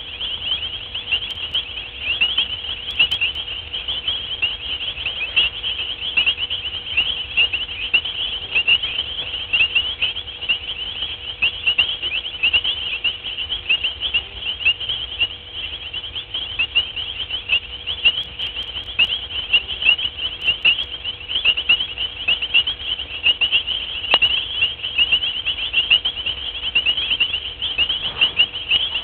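A dense night chorus of insects: countless short, high-pitched chirps overlapping without a break.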